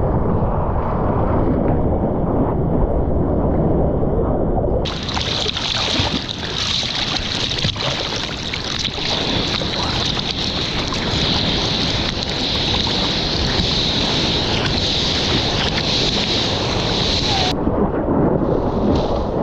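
Seawater sloshing and wind buffeting the microphone of an action camera mounted on a surfboard. About five seconds in, a brighter steady hiss of rushing water joins the muffled wash and stops abruptly near the end.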